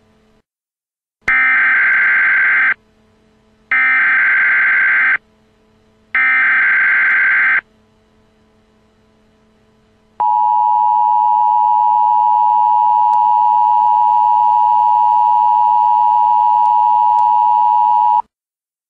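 Emergency Alert System signal: three short bursts of warbling data tones, the SAME header, each about a second and a half long, followed by about eight seconds of the steady two-tone EAS attention signal, which cuts off abruptly. A faint low drone runs underneath.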